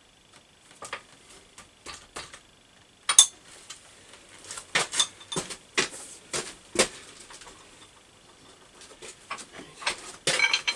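Scattered metallic clinks and knocks as a steel frame tube and the parts of a pipe bender are handled and set in place, with a quick run of clinks near the end.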